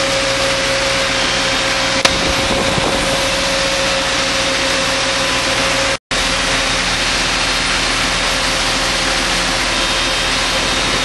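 The T5 trailer-mounted machine and its tractor running together, a loud, steady engine-and-machinery noise. A steady whine runs through the first half, there is a single click about two seconds in, and the sound cuts out for an instant about six seconds in.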